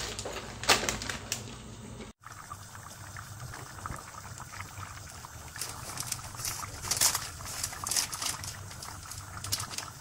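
Pot of tripe soup at the boil, bubbling and popping irregularly. A few sharp clicks come in the first second or so, before the bubbling.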